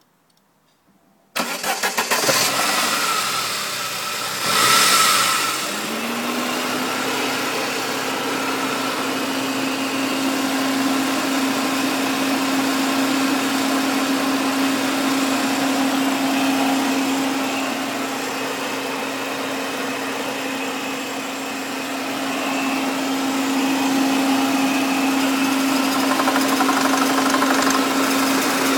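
Saab 9-3 Cabrio engine started: the starter cranks briefly about a second in, the engine catches, flares up a few seconds later, then settles into a steady idle. The owner shows this idle for a rattle ('klappert').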